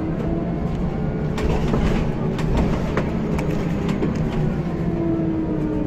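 Interior of a Scania L94UB single-deck bus on the move: the diesel engine runs steadily under road noise, while the body and fittings rattle and click over the road surface, most between about one and a half and four and a half seconds in. Near the end the engine note falls slowly.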